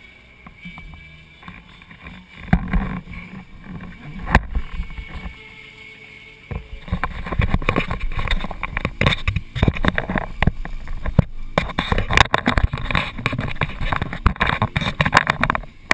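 Wind buffeting a tank-mounted action camera's microphone on a parked motorcycle, with two sharp knocks in the first few seconds, then a denser, louder crackle from about six seconds in; no engine is heard running.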